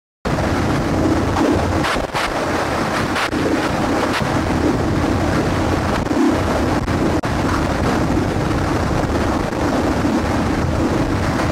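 Loud, steady rushing noise with a low drone under it, cutting in suddenly just after the start.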